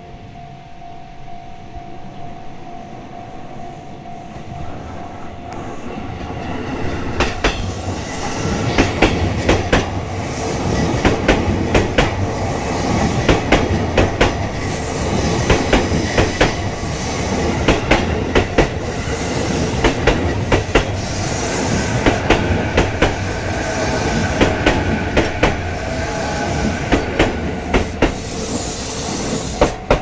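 Level-crossing bell ringing with two steady tones. From about seven seconds in, a JR East E233-series electric multiple unit passes close by: its wheels clack over the rail joints in quick groups, over a steady rumble and the whine of its VVVF inverter.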